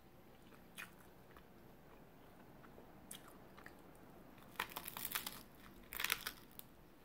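Close-up mouth sounds of someone biting into and chewing a piece of fried egg: soft, wet clicks and smacks. There are a couple of isolated clicks early, then two thicker clusters about four and a half and six seconds in.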